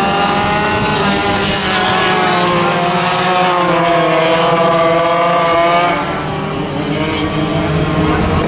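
Several vintage racing kart engines running hard together, their pitches rising and falling as the karts move around the track. The sound eases a little after about six seconds.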